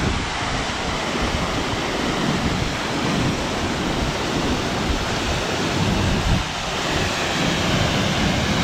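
Madison Falls pouring close by: a steady, loud rush of falling water, with wind buffeting the microphone.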